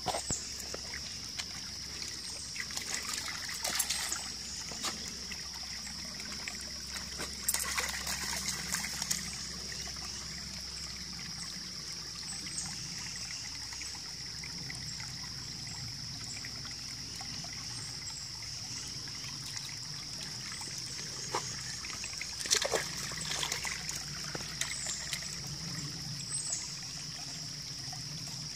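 Shallow creek trickling over stones, a steady high hiss throughout. A few short clusters of scuffs and knocks break in, the loudest about 23 seconds in.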